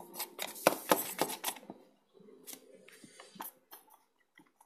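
Handling noise: a quick run of clicks and rustles for about two seconds, then a few scattered clicks, from a hand rubbing and gripping the recording camera close to its microphone.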